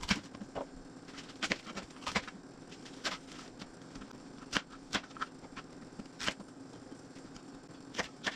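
Chef's knife rough-chopping baby bok choy on a plastic cutting board: about a dozen sharp knocks of the blade on the board, spaced unevenly, some close together.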